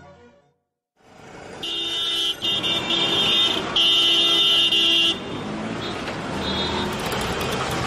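Busy street traffic with vehicle horns: after a moment of silence, horns honk in long held blasts for about three seconds, then engine and traffic noise continues with one shorter toot near the end.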